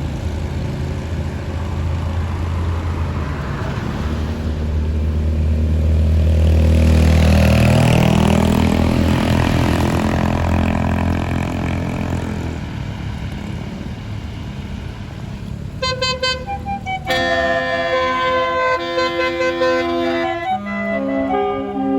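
A bus engine runs, growing louder and then fading as the bus goes by. About two-thirds of the way in, a Basuri multi-tone 'telolet' horn starts playing a tune of quick stepped notes.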